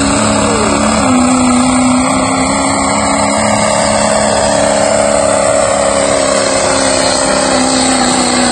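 Three-quarter-ton diesel pickup truck's engine running at full throttle under heavy load as it drags a weight-transfer pulling sled, held at steady high revs with a brief dip in pitch about a second in.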